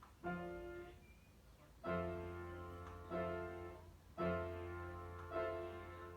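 Soft background piano music: slow, separate notes or chords that each ring and fade, five of them about a second apart.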